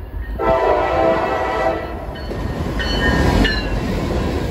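Norfolk Southern diesel freight locomotive blowing its air horn for a grade crossing as it approaches: one long blast about half a second in, then a shorter, higher tone around three seconds, over the steady low rumble of the engine and train.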